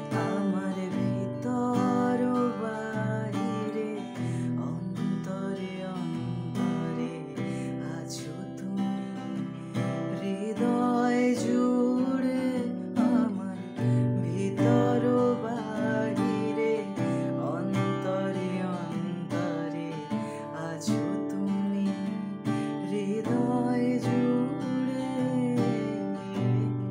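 A man singing a Bengali song in phrases while strumming chords on an acoustic guitar.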